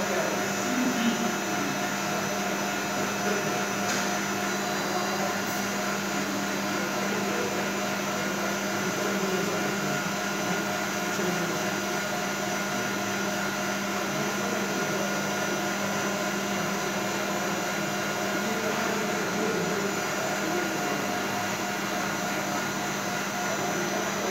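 A machine running steadily: an even hum with several constant tones over a whoosh of air noise.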